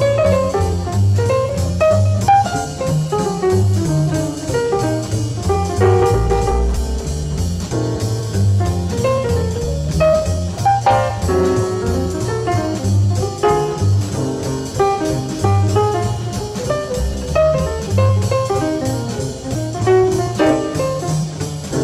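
Jazz background music: a guitar melody over bass and drums.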